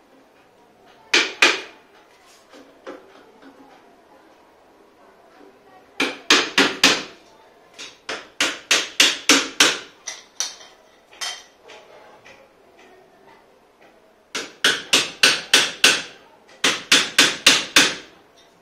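Small hammer tapping steel tubes into the plastic joint connectors of a collapsible wardrobe frame, in several runs of quick sharp strikes, about four a second, with short pauses between.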